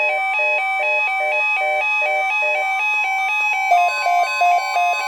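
A Midland weather alert radio sounds its alert alarm for an incoming NOAA Weather Radio warning message. The alarm is a repeating electronic two-note beeping, about two cycles a second, over a steady high tone. About three and a half seconds in, the beeping switches to a quicker pattern and the steady tone grows louder.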